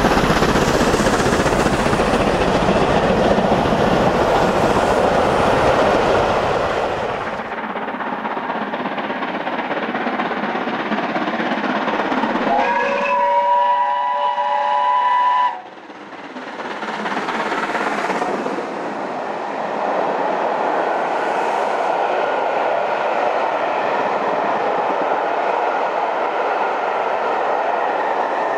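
Steam locomotives working hard on a steep climb. First one passes with loud, heavy exhaust. Then another approaches and sounds its steam whistle for about three seconds, and its working exhaust carries on after the whistle stops.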